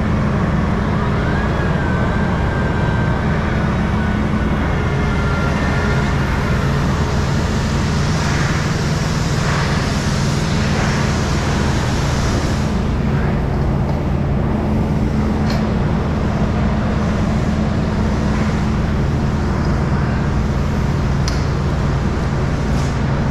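A steady, loud, low mechanical drone with a constant hum. Over it, the vinyl tarp rustles around the middle, and a few sharp clicks come later.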